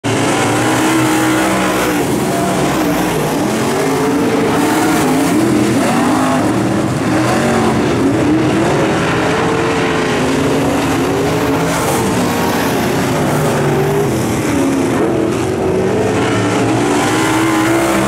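Several dirt-track modified race cars running laps on a dirt oval. Their engines overlap, each pitch rising and falling every few seconds as the cars speed up and back off.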